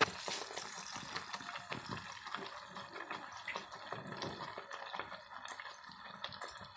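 Ariselu, a jaggery and rice-flour puri, deep-frying in hot oil and ghee: a steady sizzle full of small crackles and pops. There is a single light knock right at the start.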